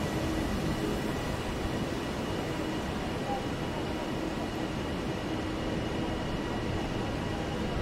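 Passenger multiple-unit train moving slowly along the far platform, a steady rumble with a faint constant hum over the station's background noise.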